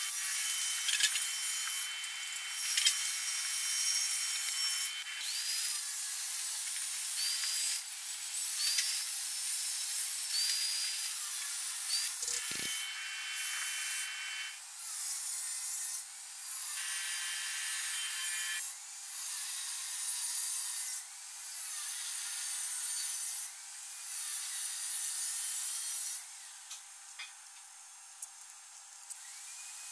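Angle grinder with a cut-off disc cutting square steel pipe, in a series of cuts a couple of seconds each with short pauses between. The sound is thin, with no bass.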